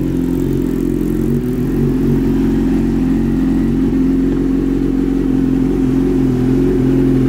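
Yamaha YZF-R6's inline-four engine idling steadily through a stainless Termignoni GP slip-on and Arrow header, a little louder after about two seconds.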